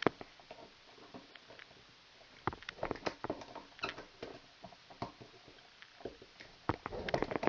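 Klein Tools wire strippers working a stripped copper conductor into a hook loop: scattered light clicks and scrapes of the steel jaws on the wire, coming irregularly.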